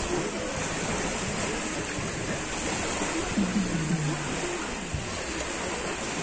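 Steady rushing background noise, with a faint distant voice a little past the middle.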